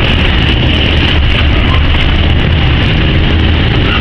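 Freight train's covered wagons rolling past close by: a loud, steady rumble of wheels on rail with a hiss over it.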